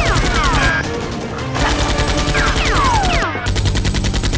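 Rapid automatic-gunfire sound effects in three bursts, with several falling whistles, over background music. The effects are dubbed onto a Nerf blaster fight.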